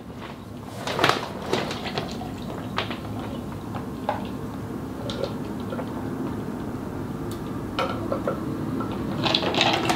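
A person drinking from a plastic cup in long swallows, close to the microphone: liquid and swallowing sounds with a few short clicks scattered through.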